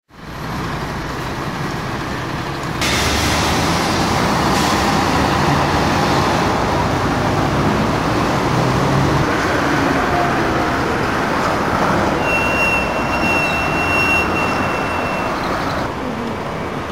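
Street traffic noise: a steady wash of passing vehicles that gets suddenly louder about three seconds in. A thin, high, steady squeal runs for about three seconds near the end.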